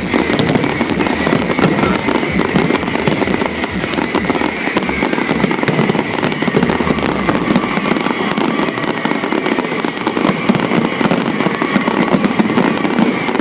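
Fireworks finale: a continuous, dense barrage of bangs and crackles with no break, with a steady high whistling tone running underneath.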